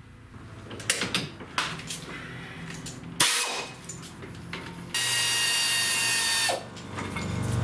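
Metal clicks and a sharp knock, then a power tool runs steadily for about a second and a half and winds down, spinning out a loosened 19 mm brake caliper bracket bolt.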